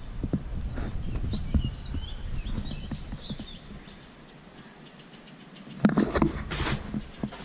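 Outdoor ambience of a moving handheld camera: a low wind rumble on the microphone and scattered knocks from handling, with faint bird chirps. A loud rustling scrape comes about six seconds in.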